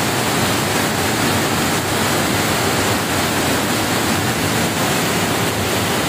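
Small mountain waterfall pouring over rocks close to the microphone: a loud, steady rush of white water.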